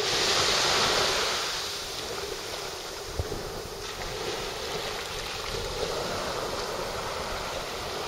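Small waves washing up onto a sandy beach: a louder rush of surf in the first second or so, then a steady wash.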